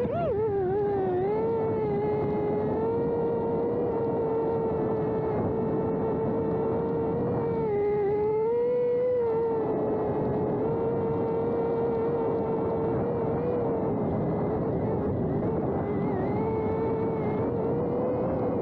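Cine8 FPV drone's motors and propellers whining steadily, the pitch wavering up and down with throttle and rising briefly about halfway through, over a rush of air noise.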